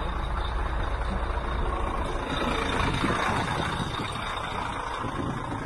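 Scania dump truck's diesel engine running, with its sound growing fuller and rougher for a couple of seconds around the middle.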